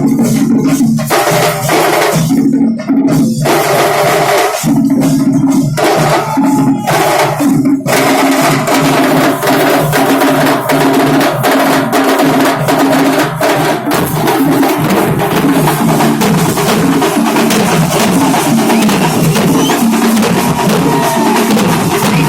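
Loud festival drumming playing a fast kuthu beat, dense rapid strikes going without a break, with a steady pitched line sounding under the drums.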